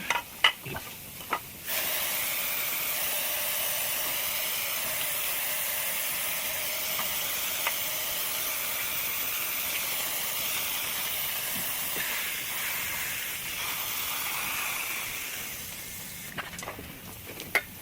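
Steady hissing spray that comes on abruptly a couple of seconds in and dies away shortly before the end: spraying while cleaning the parts of a disassembled window air conditioner.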